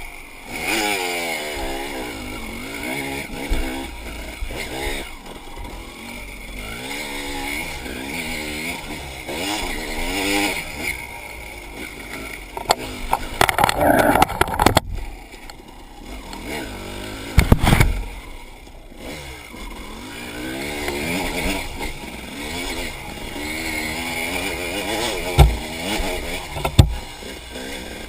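Enduro dirt bike engine revving up and falling back over and over as it is ridden through the gears, with a few loud thumps and clatter along the way.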